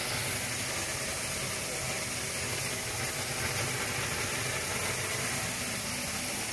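RealTech M96 seed color sorter running: a steady machine hum with a strong hiss over it as seeds stream down its chutes.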